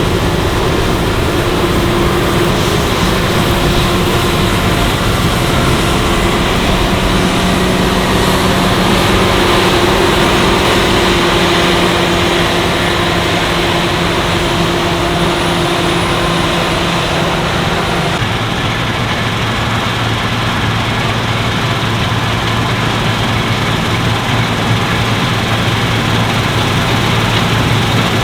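Claas Lexion 770TT combine harvester's diesel engine running steadily under load, with the rush of the threshing machinery. About two-thirds of the way through the engine note changes, a lower steady hum taking over.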